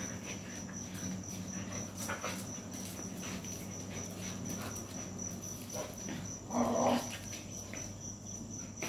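Two dogs scuffling across a tiled floor, faint claw clicks, with one short dog vocal sound about two-thirds of the way through. A cricket chirps steadily in the background.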